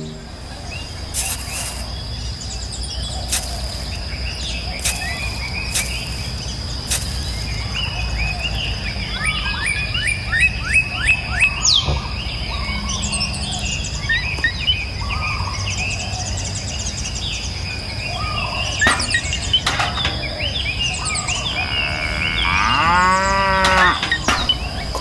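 A cow mooing once near the end, in a long call that bends in pitch. Short bird chirps come and go through the middle, over a steady high-pitched whine and a low rumble.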